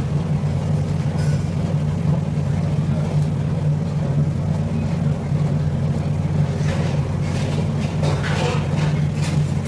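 A steady low motor drone, with faint voices in the background near the end.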